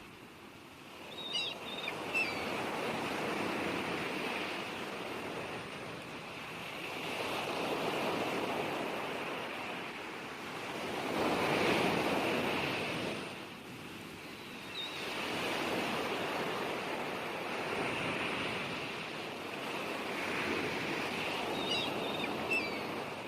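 Sea waves washing onto the shore, each surge swelling and falling back about every four seconds, the loudest about twelve seconds in.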